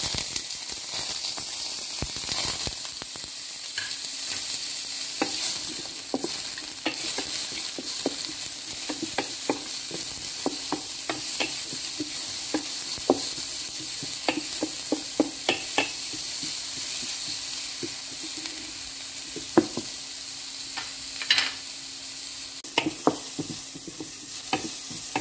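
Chopped shallots, garlic and ginger sizzling steadily in hot oil in a non-stick pot, being sautéed until they soften. A wooden spatula scrapes and taps against the pot again and again as they are stirred.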